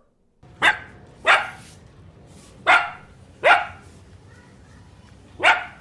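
A dog barking five times: two pairs of barks, then a single bark near the end.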